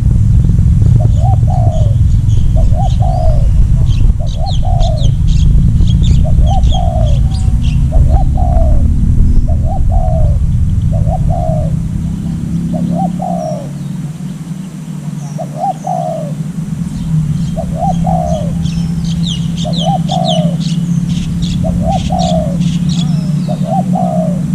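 A decoy dove cooing over and over, one short coo about every second and a half. Small birds chirp in two busy spells over a low rumbling noise.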